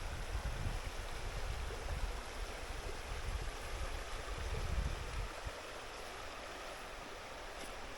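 Creek water running steadily. Low wind rumble buffets the microphone for the first five seconds or so, then drops away.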